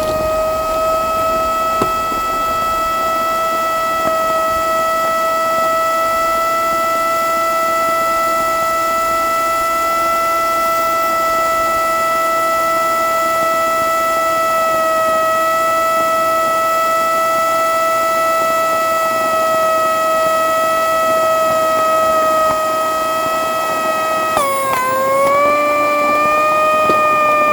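Shark Navigator vacuum cleaner's motor running with a loud, steady high whine. About 24 seconds in the pitch drops suddenly, then wavers at a lower pitch.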